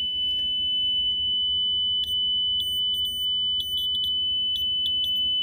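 Piezo speaker salvaged from a carbon monoxide detector, driven by a frequency generator, sounding a steady high-pitched tone. From about two seconds in, short clicks and crackles keep breaking in over it.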